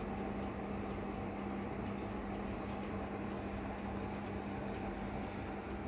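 Countertop electric oven running with its heating element on: a steady, even hum.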